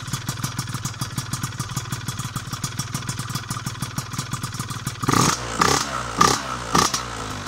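Piaggio Zip SP scooter's two-stroke engine, fitted with a Malossi 172 cylinder kit, a 35 mm Keihin PWK carburettor and a PM Tuning PM59 expansion exhaust, idling while it warms up from a cold start. About five seconds in the throttle is blipped four times in quick succession.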